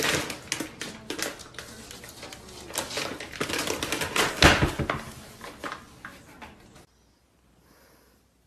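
Rapid crackling rustle of a plastic bag, mixed with knocks of a wooden cabinet door, as a cat claws at an under-sink cabinet and drags the bag out. The loudest knock comes about four and a half seconds in, and the sound stops abruptly about seven seconds in.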